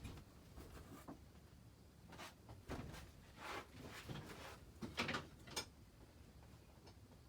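Casablanca Panama II ceiling fan running on speed 3 with a dull, quiet motor tone, unusually soft for this model. A few light knocks and rustles come at irregular moments.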